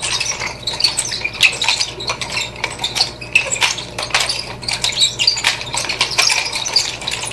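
Wooden nunchaku's short metal chain clinking and rattling as the nunchaku is twirled, a quick irregular run of light metallic clicks.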